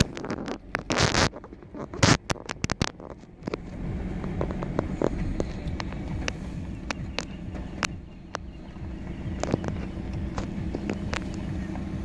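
Motor vehicle engine running steadily at low speed, with a cluster of sharp clicks and crackles in the first three seconds.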